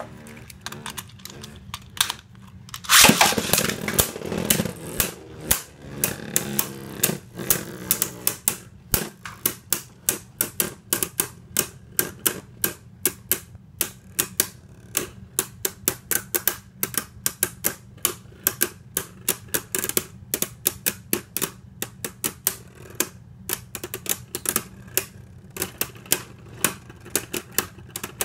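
Beyblade Burst spinning tops launched into a plastic stadium, with a loud rush about three seconds in, then spinning and clashing in a long run of sharp, irregular clicks as they hit each other.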